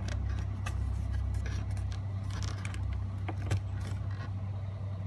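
Hinged plastic trim cover being worked into place in a Mercedes-Benz S550 interior: light plastic clicks and rattles, with one sharper click about three and a half seconds in, over a steady low hum.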